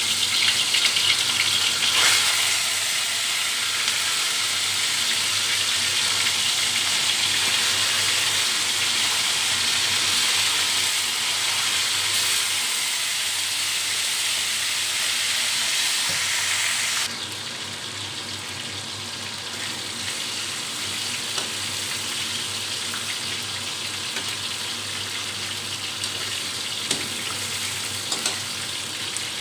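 Pieces of spice-braised snake meat frying in hot oil in a metal wok, a loud steady sizzle. About 17 seconds in the sizzle drops suddenly to a quieter level, and near the end a metal spatula clicks a few times against the wok.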